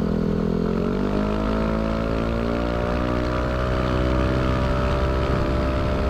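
Yamaha Aerox 155 scooter's single-cylinder engine running through a K'RACE Standard Racing exhaust, its note rising about a second in and then holding steady.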